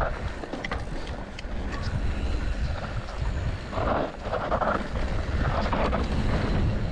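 Wind rumbling on the microphone of a mountain bike riding down a trail, with tyre noise and short rattles from the bike over the ground.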